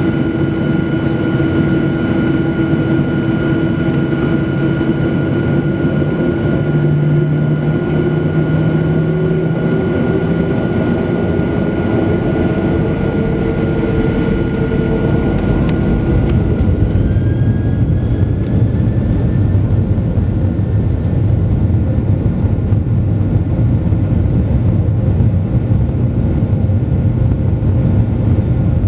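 Boeing 737-800's CFM56-7B jet engines heard from inside the cabin: a steady whine over a heavy rumble, one tone slowly rising. About halfway through, a new whine climbs and the low rumble grows louder as thrust comes up and the aircraft starts to move.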